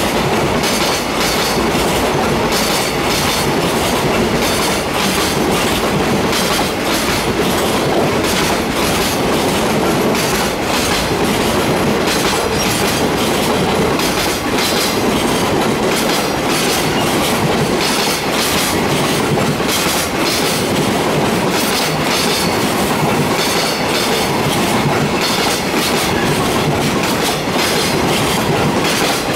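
Freight train of container flat wagons rolling past at steady speed, a continuous run of wheel clatter over the rail joints with rumbling running noise.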